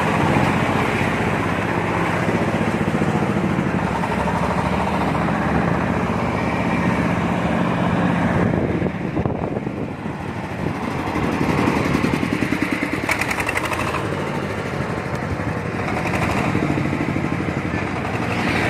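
Corn sheller machine's engine running steadily with a rapid firing beat, easing briefly about halfway through and then picking up again.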